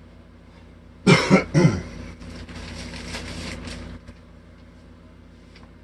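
A man coughs once, briefly, about a second in. A fainter hiss follows for about two seconds, over a steady low hum.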